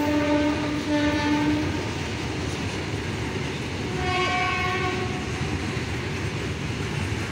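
Covered goods wagons of a freight train rolling past on the rails with a steady rumble. A train horn sounds twice: a blast of under two seconds at the start, and a shorter, higher-pitched one about four seconds in.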